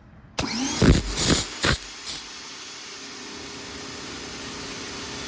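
Pressure washer starting up and spraying through the red 0-degree nozzle: the motor whine rises as it starts about half a second in, the jet comes in several loud surges over the next second and a half, then it settles into a steady spray hiss over a steady motor hum.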